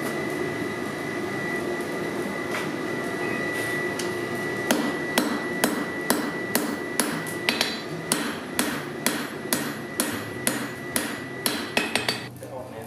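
Hand hammer striking hot steel on an anvil to forge out a knife blade. One blow comes about two and a half seconds in. From about five seconds in, steady blows follow at about two a second, over a steady background hum.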